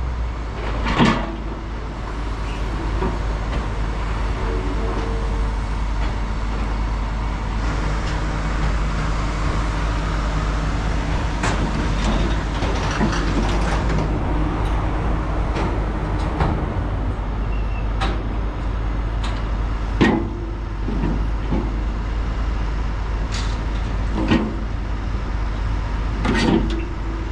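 A heavy diesel engine running steadily, with scattered sharp knocks; the loudest come about a second in and about twenty seconds in.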